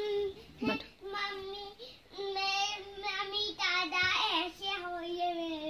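A young child singing to himself in a high voice, in long drawn-out notes.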